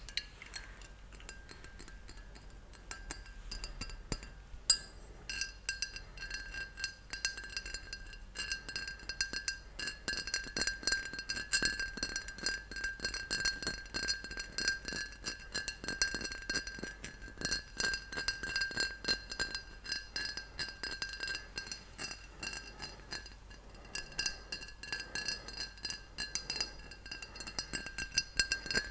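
Fingers tapping rapidly on a full glass bottle, each tap setting the glass ringing with a clear clink. The tapping is sparse at first, with one sharp knock about five seconds in, then runs fast and steady, with a brief lull about three-quarters of the way through.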